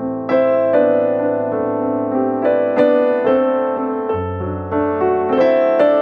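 Background music: gentle electric piano playing a slow melody with chords.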